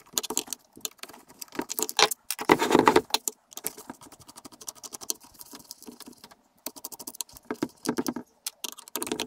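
Small screws with washers being backed out of a planer motor's plate with a screwdriver and handled, a run of light metal clicks and clinks. There is a louder burst of rattling about two and a half seconds in, and more clicking near the end as the loosened plate is moved.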